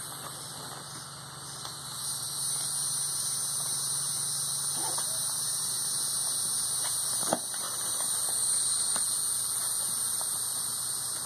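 Steady, high-pitched drone of night insects that grows louder about two seconds in, over a low hum, with a single sharp click about seven seconds in.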